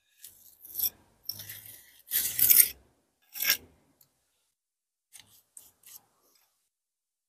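Steel pointing trowel scraping lime mortar off a hawk and working it into brick joints: a run of short scrapes, the longest a little over two seconds in, then a few faint clicks about five to six seconds in.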